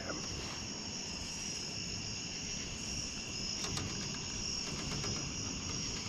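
Summer night insect chorus: crickets chirring steadily in several high-pitched bands, with a few faint ticks a little past halfway.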